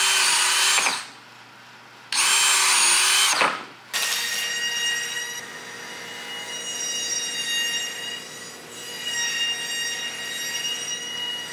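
Cordless drill boring holes into a ski for the binding screws: two bursts of about a second and a half each, the motor note dipping under load in the middle of each. After that, a quieter steady high whine of several tones carries on.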